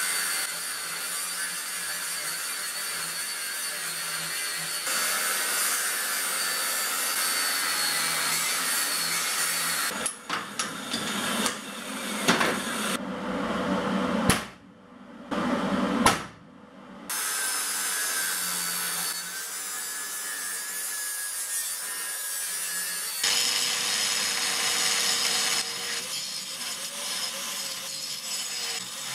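Workshop power tools cutting and machining steel in a series of short clips, the sound changing abruptly every few seconds, with two brief drops to near quiet around the middle.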